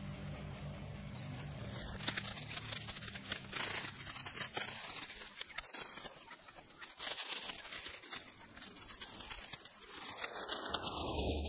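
Grass rustling and tearing as it is handled and pushed through by hand, a run of irregular crackling noises. A low steady hum stops about two seconds in.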